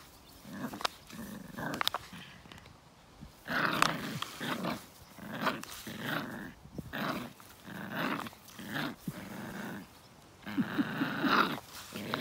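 Puppy growling in short repeated bursts, about one a second, while tugging at a plastic flower pot in tug-of-war play; the longest, loudest growl comes near the end. A few sharp clicks from the plastic pot come before the growling starts.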